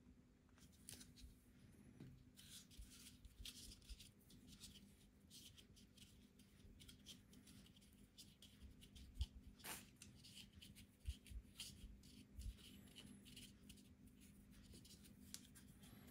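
Faint handling noises: small plastic clicks and rubbing as hands work an oil syringe and its tube at a Pinion gearbox's oil port, with one sharper click about ten seconds in, over a steady low hum.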